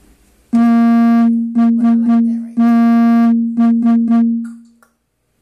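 Music: a single note repeated in a rhythm, one long note then four quick ones, twice over, fading out shortly before the end.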